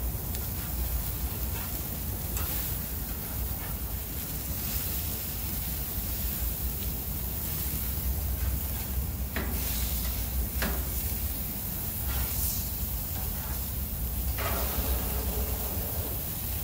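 Beef burger patties sizzling on a gas grill as they are flipped with a metal spatula over flaring flames, under a steady low rumble. The spatula clicks sharply on the grate twice near the middle.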